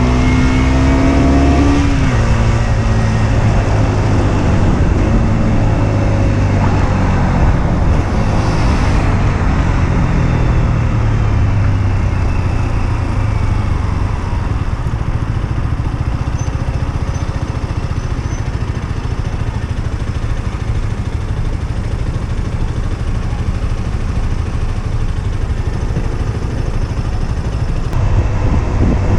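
Husqvarna Svartpilen 125's single-cylinder engine while riding: high revs that drop about two seconds in, then running at lower revs under steady wind and road noise, picking up again near the end.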